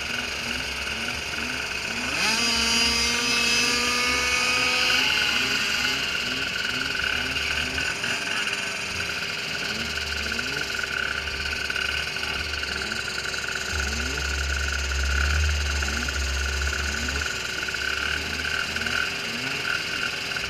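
Small micro ATV engines revving up about two seconds in, then holding a steady drone. Through it runs a rhythmic croaking chirp, about two a second.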